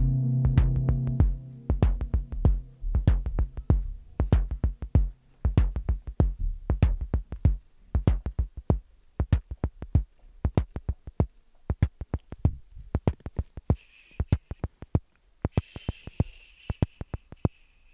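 Hardware drum synthesizer playing a fast, uneven pattern of short, clicky percussive hits. A sustained synth chord and bass die away in the first second or two, and a few brief higher-pitched tones come in near the end.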